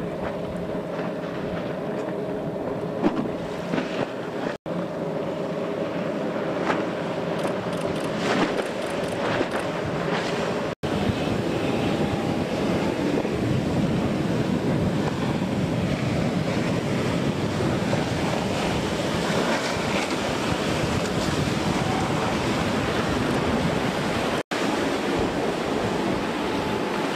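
Coast Guard 29-foot Response Boat-Small II running at high speed, its twin outboard engines droning steadily under the rush of spray and wind on the microphone. The sound drops out for an instant three times where the shots change.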